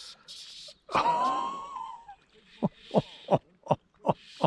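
A person's wordless voice: a high exclamation about a second in, then a run of short breathy gasps, about three a second, in the second half.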